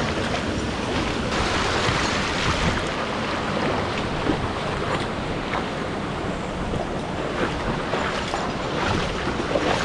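Steady rush of falling and flowing mountain-stream water in a gorge, with a few faint clicks.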